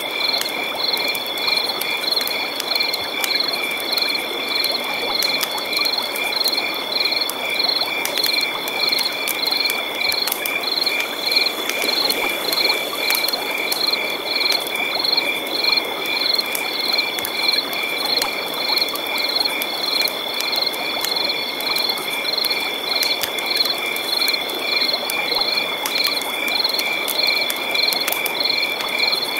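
Night chorus of insects and frogs: a continuous high trill runs unbroken, while a pulsed call repeats at an even, steady rhythm over a constant rushing background.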